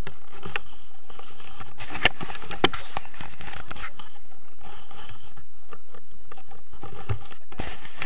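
Handling noise from an action camera held in the hand: fingers rubbing and scraping on the camera and its grip, with a few sharp clicks, the loudest two about two seconds in, half a second apart.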